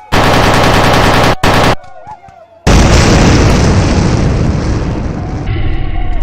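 Gunfire and explosion sound effects: a loud rattling burst of about a second and a half, a short second burst, then a big boom that dies away slowly over about three seconds.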